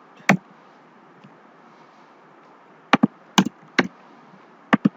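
Separate keystrokes on a computer keyboard, sharp clicks at an uneven pace: one near the start, a cluster of four about three seconds in and two near the end, over a faint steady hiss.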